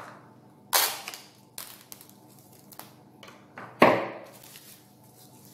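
Plastic cling wrap crackling as it is pulled and pressed over a glass bowl: two loud crackles about three seconds apart, with a few faint clicks between.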